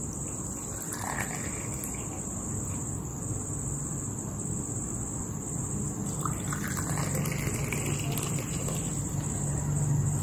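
Hot chai poured from a china jug into small glasses: a stream of liquid splashing in, growing a little louder toward the end, over a steady high-pitched whine.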